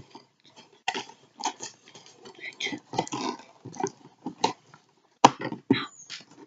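Toy-gun packaging being handled and pulled open: irregular crinkling and crackling of plastic and cardboard, with a sharp snap about five seconds in.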